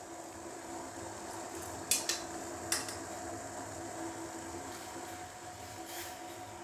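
A few sharp knocks of a metal sieve and a wooden spatula against a steel saucepan, two close together about two seconds in, another shortly after and one near the end, over a steady low hum.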